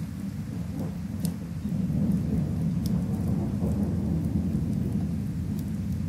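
Steady rain with a low rumble of thunder that swells about a second and a half in and rolls on. A few faint sharp crackles from a fireplace sit on top.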